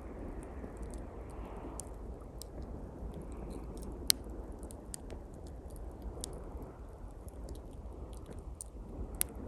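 Small campfire of pine twigs crackling, with a steady scatter of sharp snaps and two louder pops, about four seconds in and near the end. Waves wash steadily behind it.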